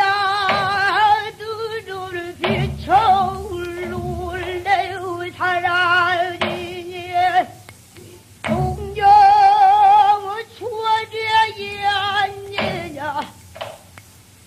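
A female pansori singer sings a danga in long held phrases with a wide, wavering vibrato, with short breaks between phrases.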